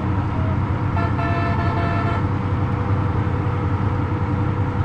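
Steady road rumble of a vehicle driving, with a vehicle horn sounding once for about a second, about a second in.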